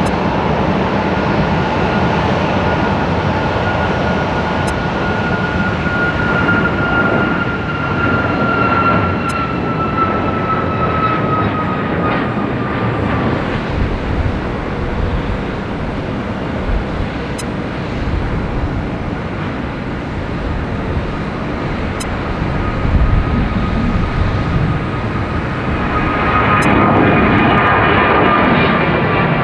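Boeing 737-800 CFM56-7B turbofan jet engines: a steady jet roar with a high whine that slides down in pitch as the aircraft passes. Then a second 737-800's roar and whine build up and grow louder near the end.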